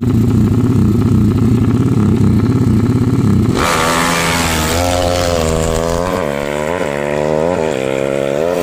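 Motorcycle engine running loud and rough, then from about three and a half seconds in revved several times, its pitch rising and falling with each blip.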